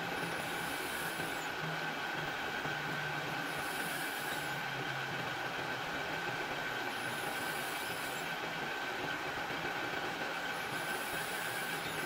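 Metal lathe running with its spindle turning while a small twist drill in a tailstock drill chuck bores into the workpiece: a steady machine whine with hiss, and a brief high hiss about every three and a half seconds.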